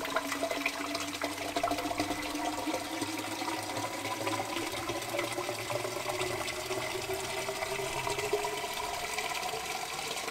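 Water from a garden hose pouring into an upright PVC pipe reservoir, a steady rushing fill with a tone that rises slowly as it goes.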